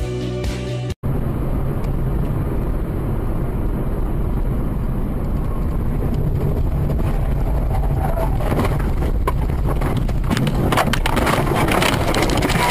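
After a second of intro music, a car's dashcam recording from inside the cabin: steady road and engine rumble at highway speed. From about eight seconds in, crackling and rattling build as the car leaves the road into roadside vegetation.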